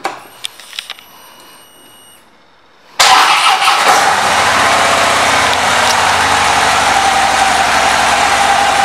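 2014 Harley-Davidson Dyna Fat Bob's Twin Cam V-twin being started: a few clicks and a faint high steady tone as the ignition is switched on. About three seconds in, the engine fires with a sudden loud start and settles into a steady idle.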